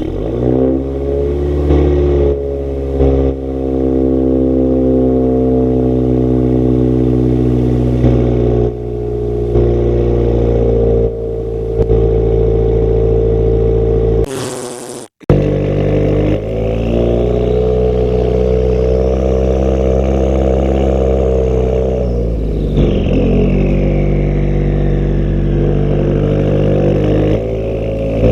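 Straight-piped 2017 Subaru Forester XT's turbocharged FA20DIT flat-four, with a catless downpipe into a 3-inch race exhaust, running loud just after starting. Its note settles down from the start-up flare in the first couple of seconds. After a brief break about halfway, the revs climb slowly and then drop back.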